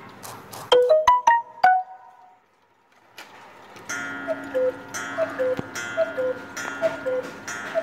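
Carved Black Forest hunter cuckoo clock with an eight-day movement. A quick run of short plinking notes, a brief hush, then the cuckoo calling its two falling notes over and over, about once a second, over a steady held tone, as the clock sounds the hour.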